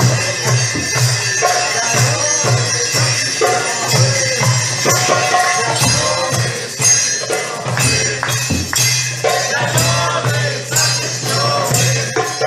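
Folk band playing live: a steady rhythm of drum strikes and jingling percussion over a low, unchanging drone and a melody line.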